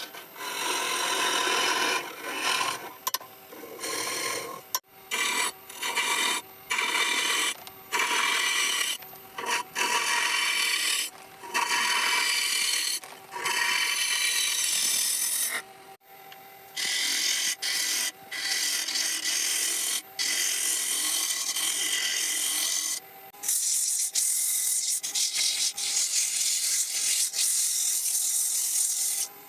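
Wood being worked by hand with an abrasive tool, in repeated scraping strokes of about a second or two separated by short pauses. From about 23 s in, the strokes turn brighter and hissier.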